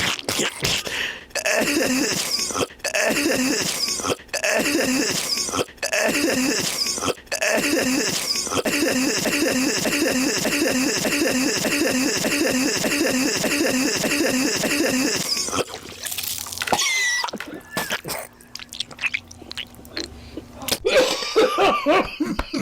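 Coughing repeated over and over in a fast, machine-regular pattern, like a cough clip looped, at first in runs broken about every second and a half and then in even quick repeats; it stops about fifteen seconds in and quieter scattered sounds follow.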